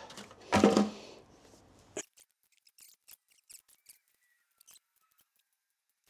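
Scattered faint small clicks and plastic handling noises as a broken 12-volt plug and its wires are worked on by hand, after one brief louder sound about half a second in.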